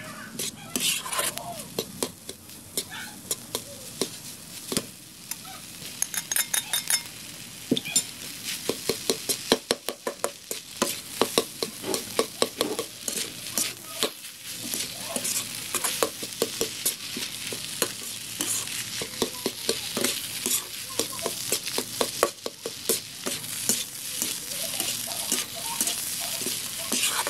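Fried rice sizzling in a wok while a slotted metal spatula stirs and turns it, scraping and clacking against the pan in quick repeated strokes over a steady hiss.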